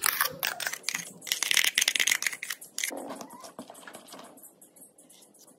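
Spoon scraping and clinking against a steel tumbler and a glass bowl while liquid batter is poured in and stirred: rapid clicking and rattling, loudest in the first three seconds, then fading to a few light clicks.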